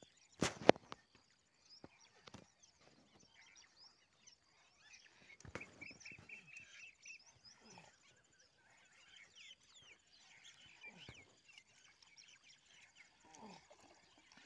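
Small birds chirping and calling, with a loud sharp double knock about half a second in. Near the end a hooked fish splashes at the surface.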